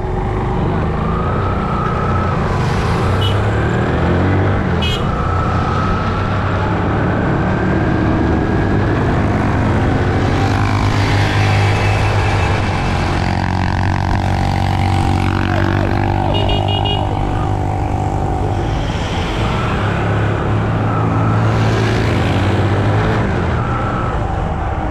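A motor vehicle's engine running steadily as it drives along a road, its pitch shifting now and then with the throttle, over road and wind noise and the sound of passing traffic.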